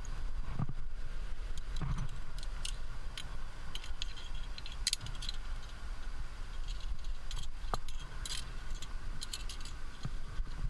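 Metal climbing gear (carabiners and cams racked on a harness) clinking and jingling in scattered short bursts, over a steady low rumble.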